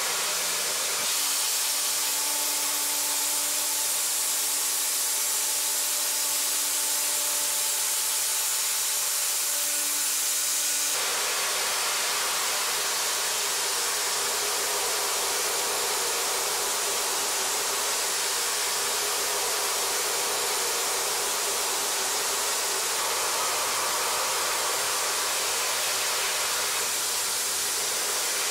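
CNC machine milling C45E steel with a Fraisa E-Cut end mill: a steady hiss with faint steady tones under it. About a third of the way in the sound changes abruptly to a plainer hiss as the cut switches from high-performance vertical milling to pre-finishing.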